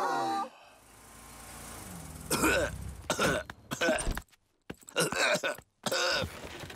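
A sick cartoon bear coughing: a run of hoarse coughs starting a little after two seconds in and repeating to the end, the cough he has caught.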